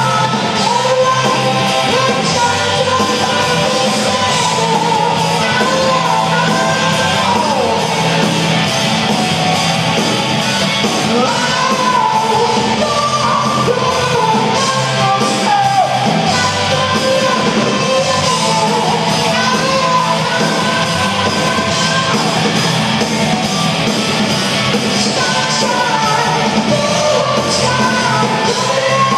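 Live rock band playing, amplified in a theatre hall: six-string electric guitar, keyboards and drums, with a high lead melody bending in pitch over the band.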